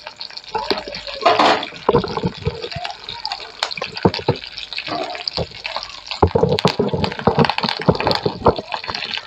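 Dried red chillies and green chillies sizzling in sesame oil in a metal kadai, being lightly fried for a masala. A spoon scrapes and knocks irregularly against the pan as they are stirred.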